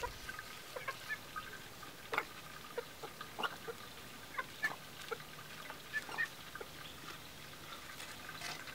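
A chicken clucking, a scattering of short soft calls spread through the few seconds.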